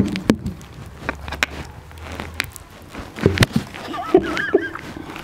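Bananas being bitten and peeled with the teeth: scattered sharp knocks and clicks as the fruit is pushed against a wooden tabletop, with mouth noises. A brief wavering hum comes from one of the eaters near the end.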